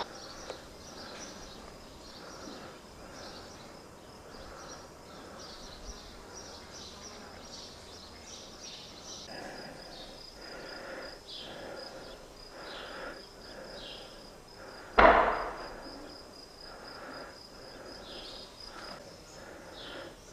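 Outdoor ambience of small birds chirping over a high, even insect trill, broken about fifteen seconds in by one sharp, loud bang that dies away within a second.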